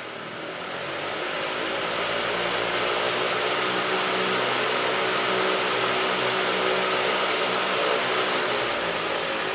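Dayton electric fan running with its blades pitched steeper to load the motor: a steady rush of moving air over a faint motor hum. It grows louder over the first two seconds or so, then holds steady.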